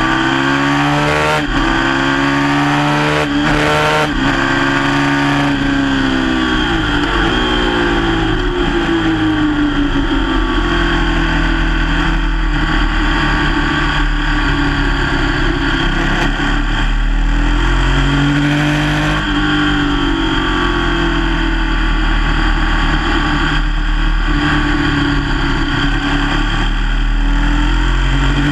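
Sport motorcycle engine heard onboard at speed on a race track. It revs up and down in quick steps in the first few seconds, then eases off and pulls hard again out of two corners, with a steady rush of wind noise throughout.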